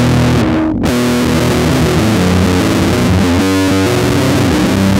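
Four-string electric bass played through distortion, running a fast metal riff of quick low notes, with a dense full-range backing behind it.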